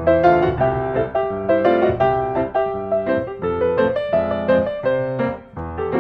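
Background piano music: a steady flow of notes with many chords.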